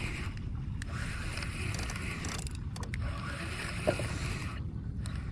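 Spinning or conventional fishing reel being cranked steadily while fighting a fish from a kayak, a continuous low mechanical grinding with water and wind noise underneath and a brief squeak about four seconds in.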